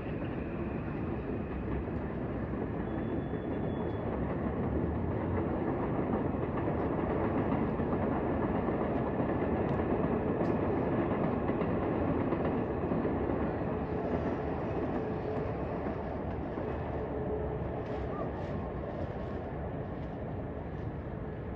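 A train running past out of sight, a steady rumble that builds to its loudest about halfway through and then fades.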